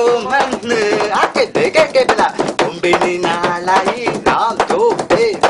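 A man's voice vocalizing in a rapid, gliding sing-song, with quick sharp percussive clicks running through it.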